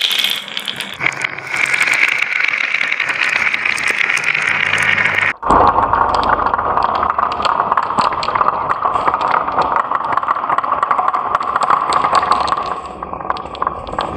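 Glass marbles rolling and clattering down grooved wooden marble-run tracks and plastic curves: a dense rattle of small clicks as they knock against the track and each other. The sound breaks off for an instant about five seconds in, then resumes lower-pitched.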